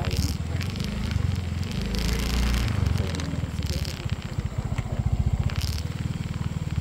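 A vehicle engine running with a steady, fast low throb, with short bursts of hiss on top every second or two.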